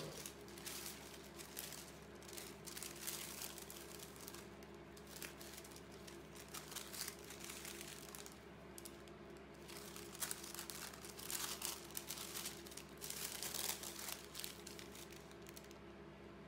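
A thin, slightly see-through sheet of printed paper rustling and crinkling as it is handled and laid over a collage, in irregular bursts.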